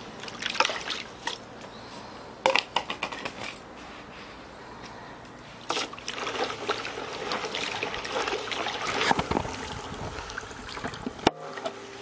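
Water sloshing and swishing in a large plastic basin as a hand stirs coarse salt into it to dissolve it into brine for salting napa cabbage. The stirring comes in bouts, with a sharp click near the end.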